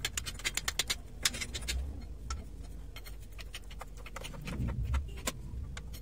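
Sharp metal clicking from the hand-pumped jack handle of a hydraulic shop press being worked: a quick run of clicks, about seven or eight a second, for the first two seconds, then scattered single clicks, over a low steady rumble.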